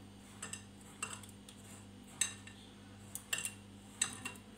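A hand mixing grated cabbage and carrot with flour in a bowl, with a few quiet, irregular clicks and scrapes as the hand works the mixture against the bowl.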